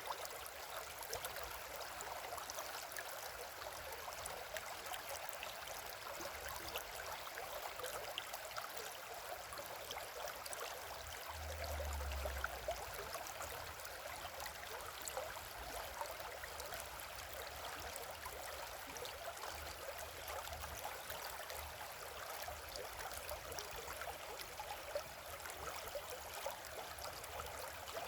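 River water flowing and burbling over stones close by, a steady rushing with many small splashes. A brief low rumble sounds about twelve seconds in.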